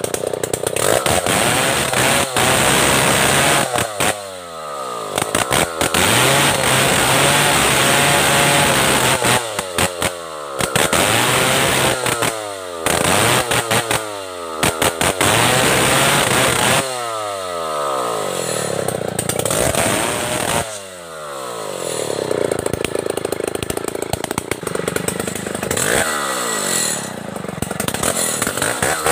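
Stihl 070 two-stroke chainsaw cutting through the branches of a felled tree, repeatedly revved to full throttle for a few seconds and then let fall back toward idle, its pitch sliding down each time the throttle is released.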